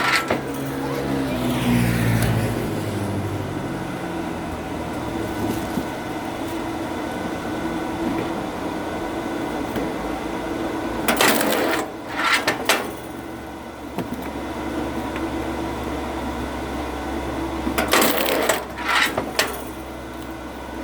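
Oak firewood being split: two bursts of sharp cracking and breaking wood, about eleven and eighteen seconds in, over a steady low mechanical hum.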